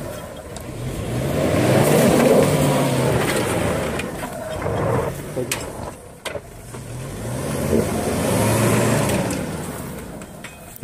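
Mahindra Scorpio engine revving hard as the SUV churns through loose dirt, rising and falling in pitch twice: once about two seconds in and again near the end. A few sharp knocks come between the two revs.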